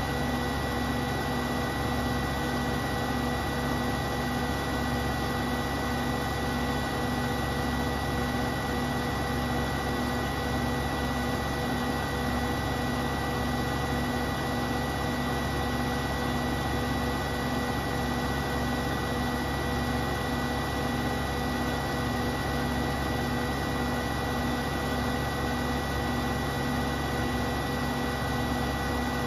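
Beko WTK74011W front-loading washing machine on its spin cycle, the drum spinning fast: a steady motor hum and whine with a rapidly pulsing low tone, holding an even speed.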